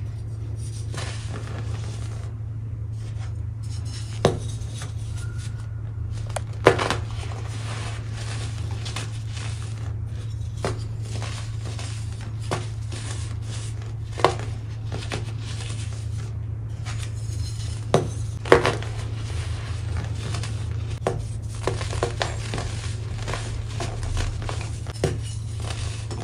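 Hands crushing and crumbling pressed baking soda blocks: a continuous dry, powdery crunching and crackling, with a few sharper snaps as chunks break apart. A steady low hum runs underneath.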